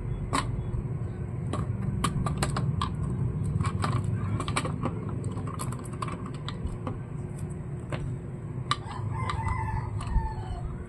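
A rooster crowing in the background near the end, over a run of small clicks and taps from laptop parts and screws being handled.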